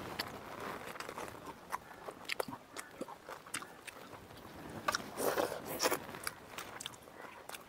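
Close-up eating sounds of people eating pakhala rice with drumstick curry and fried greens by hand: chewing and biting with scattered small crunches and clicks, a little busier about five seconds in.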